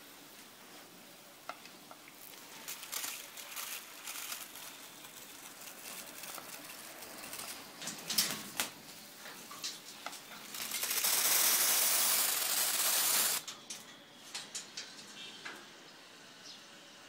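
Scarlet macaws rustling and flapping their wet feathers, with scattered taps and ruffles, then a steady hiss of a water spray for about three seconds, starting roughly ten seconds in, the loudest sound, as the birds are showered.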